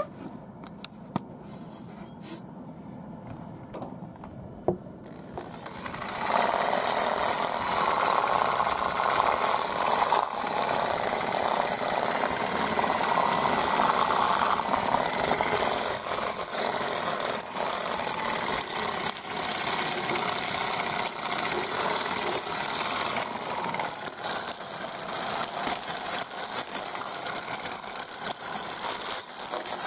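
Homemade barrel chicken plucker starts up about six seconds in and runs steadily, with a loud rubbing, rattling noise as a chicken tumbles against the drum. Before that there are only a few faint clicks.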